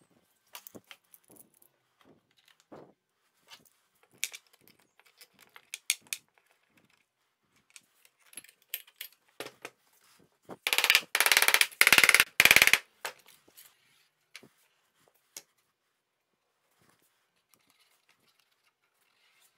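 Hand work at a woodworking bench during a glue-up: small clicks and knocks of bar clamps, boards and loose screws being handled and set. Just past the middle comes a loud burst of rapid clattering clicks lasting about two seconds.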